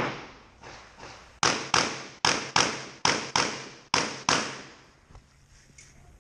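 Pistol shots fired in quick double taps: two single shots, then four pairs about a third of a second apart, each crack echoing and fading in the covered range hall.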